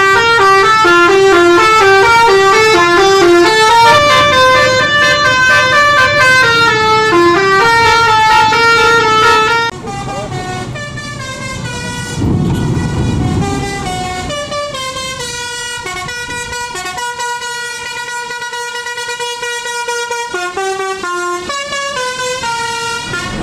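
Bus 'basuri' telolet horn playing a fast tune of stepping notes, loud for about the first ten seconds, then quieter as the tune goes on with longer held notes. A low rumble comes in briefly about halfway through.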